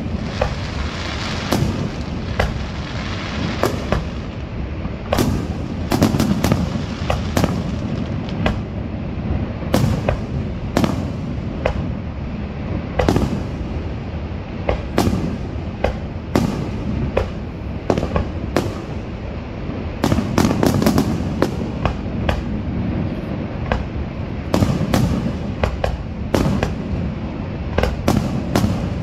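Aerial fireworks shells bursting: a long run of sharp bangs and crackles at irregular intervals, sometimes several within a second, over a steady low rumble.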